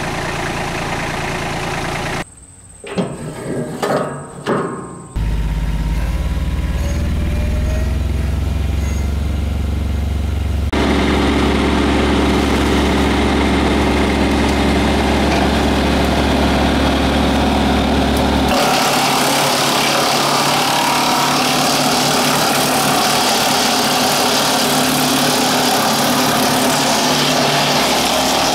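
Tractor engine running a WoodMaxx WM-8M PTO-driven wood chipper, heard in several segments that change abruptly. From about two-thirds of the way through, a loud even rushing noise covers the engine.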